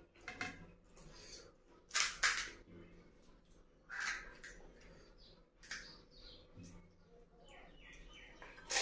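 Close-miked eating of pani puri: crisp hollow puri shells cracking and crunching, with wet mouth sounds of slurping and chewing. Sharp crunches come at irregular intervals, the loudest about two seconds in.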